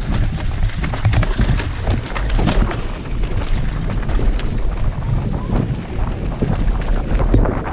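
Mountain bike descending a rough dirt downhill track: a heavy rumble of wind buffeting the action camera's microphone, with frequent knocks and rattles of the bike over the bumps.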